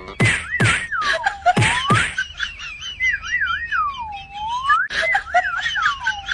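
Comic background music carried by a whistled tune: quick warbles followed by long swooping dips, the same phrase repeating about three times, over sharp percussive clicks.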